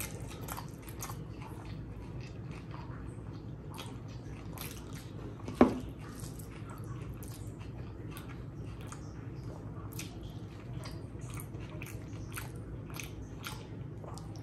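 Mouth sounds of a person eating curry and rice by hand: wet chewing and lip-smacking in many short clicks, with one sharp, much louder click about five and a half seconds in.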